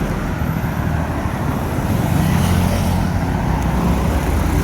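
Steady road traffic noise: vehicle engines running with a continuous rumble of passing traffic.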